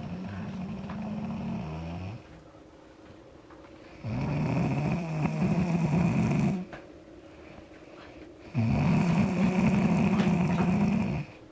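An ox snoring: three long, rasping snores about four seconds apart, the second and third louder than the first.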